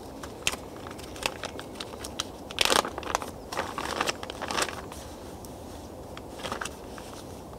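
Waterproof kit bag crinkling and rustling as it is handled, in scattered bursts with small clicks; the loudest rustle comes about two and a half seconds in.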